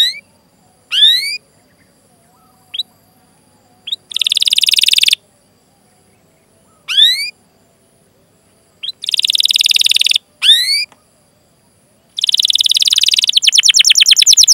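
Canary calling with sharp rising 'cuit' whistles between bursts of rapid rolling trill. A longer trill starts about twelve seconds in and quickens near the end.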